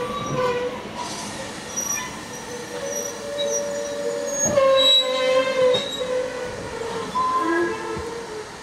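Wheel flanges of a steam-hauled train's carriages squealing as they run round a tight curve, over the rumble of the wheels on the rails. Several shifting squeal tones come and go, loudest about halfway through.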